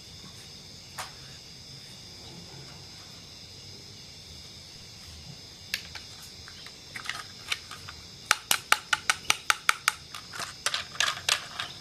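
Model train wheels clicking over rail joints. A few single clicks come first over a steady faint hiss, then from about seven seconds in the clicks turn into a quick even rhythm of roughly six a second as the train passes.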